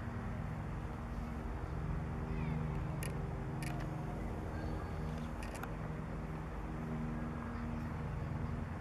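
A formation of Airbus AS350 B3 Ecureuil helicopters flying toward the listener, their single-turbine engines and rotors making a steady low drone. A few short sharp clicks occur near the middle.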